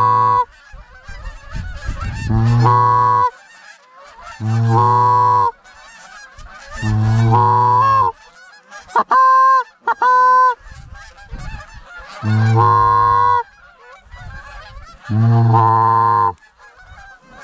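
Canada goose honking calls, a loud drawn-out honk about every two and a half seconds. Around nine to ten seconds in there are two short, higher clucks.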